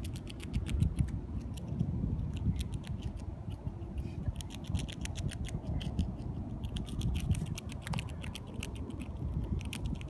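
Gray squirrel chewing a piece of food held in its paws: a quick, irregular run of small crisp crunching clicks.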